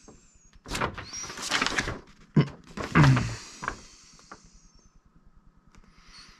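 Toy packaging being handled: a run of rustles and scrapes over the first few seconds, then quieter handling.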